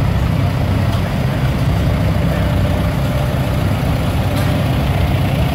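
Antique farm tractor engines running steadily at low speed as the tractors drive slowly past close by, the nearest an orange Allis-Chalmers followed by a red Farmall, giving a continuous low rumble.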